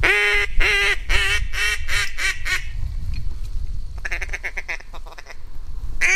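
Loud mallard-hen quacking: a descending run of about eight quacks, each shorter than the last, then a quick chatter of short quacks about four seconds in, and more quacks right at the end.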